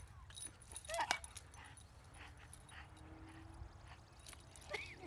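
A dog whimpering: short, high whines that rise and fall in pitch, one about a second in and another near the end.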